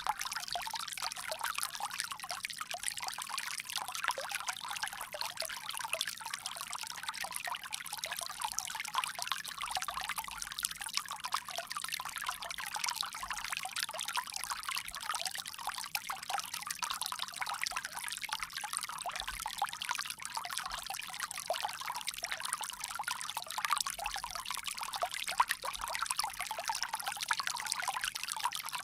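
Water running steadily from a bamboo spout in a continuous pouring stream.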